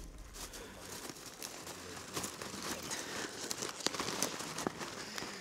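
A hand rummaging through popcorn in a cardboard bucket: a steady crinkling rustle of kernels, with sharper crackles and clicks scattered through it.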